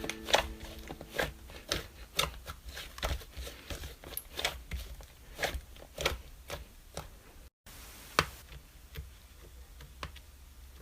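Slime being squeezed and poked by hand, making irregular wet clicks and pops. It breaks off briefly about three-quarters of the way in.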